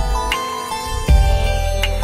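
Background music: a calm electronic melody of held notes over a deep bass note.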